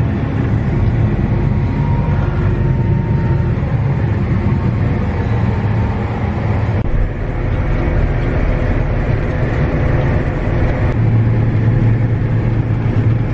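John Deere tractor engine running steadily under load, pulling an anhydrous ammonia applicator toolbar through the field, heard from the cab. The sound shifts slightly about seven seconds in.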